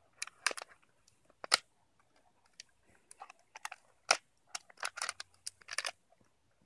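A dog chewing a red plastic Solo cup: irregular sharp crunches and crackles of the plastic, in short clusters with pauses between.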